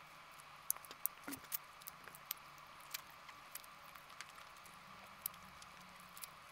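A person eating chicken wings with her fingers: irregular wet smacks and clicks of chewing and lips.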